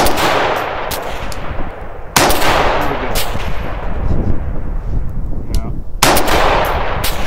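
Three rifle shots from a 5.56 AR-style rifle, about two and then four seconds apart, each a sharp crack trailing off in a long echo across the range.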